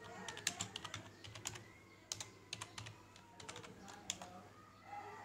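Computer keyboard being typed on: a dozen or so sharp key clicks in irregular runs, over a faint steady hum.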